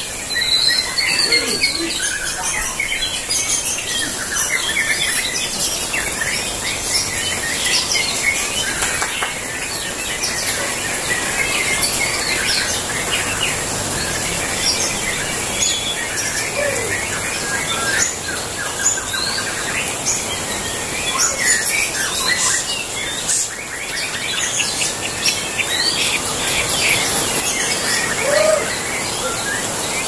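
Many caged white-rumped shamas (murai batu) singing against each other at once: a dense, unbroken tangle of overlapping whistles, trills and chirps.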